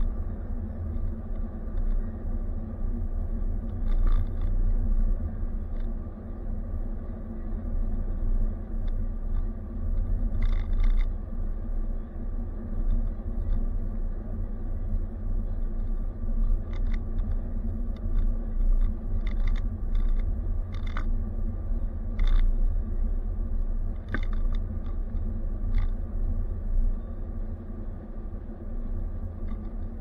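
Steady low rumble of a car's road and engine noise, picked up inside the cab by a dashboard camera while driving. Scattered light clicks and rattles come through, most of them in the middle stretch.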